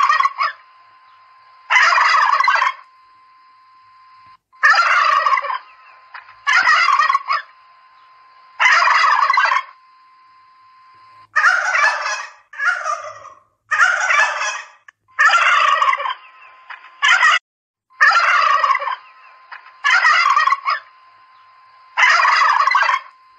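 Domestic turkeys gobbling over and over: about a dozen gobbles, each about a second long and a second or two apart, coming closer together around the middle. A faint steady tone sounds in the gaps between them.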